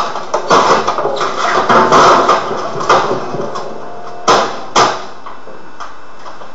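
An office computer and its CRT monitor being smashed: a rapid run of crashing, clattering blows, then two sharp bangs about half a second apart a little after four seconds in, after which the din stops.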